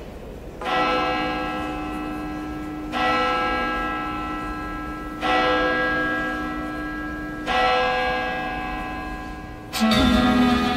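A single church bell tolling slowly, four strikes about two seconds apart, each ringing on and fading: the mournful Good Friday toll of a Greek Orthodox church. Near the end, slow string music starts suddenly.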